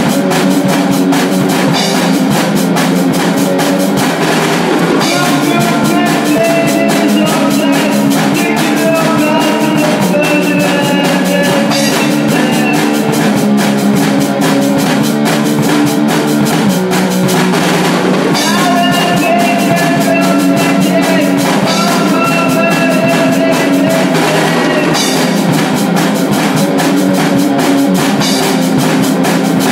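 Hardcore punk band playing loud: electric guitar riffing over busy drum-kit drumming, with no let-up.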